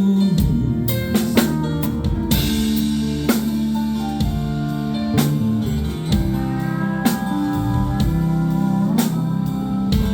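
Live rock band playing an instrumental passage of a slow song: electric guitar and bass over a drum kit, with regular drum hits and no vocals.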